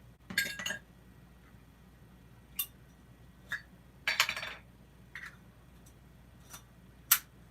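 Metal Zippo lighters being handled: a scattered series of sharp metallic clicks and clinks, one about four seconds in ringing briefly, the sharpest near the end.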